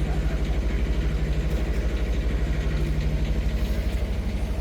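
Tractor engine idling steadily with a fast, even low throb.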